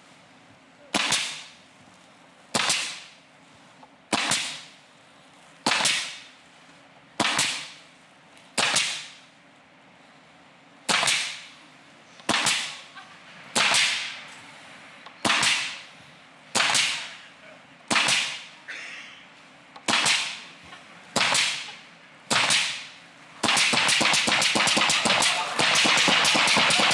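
Pneumatic nail gun firing about sixteen sharp shots at an uneven pace, one to two seconds apart, into a board on a metal table. Some shots drive a nail and some blow only air where nails were taken out of the strip. Near the end, applause breaks out.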